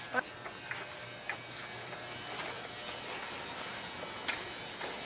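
A steady, high-pitched insect buzz, with a few short faint notes over it.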